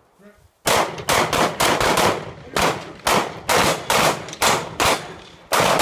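Handgun shots fired in rapid, irregular strings: a dozen or more sharp cracks, starting about half a second in, each trailing off briefly.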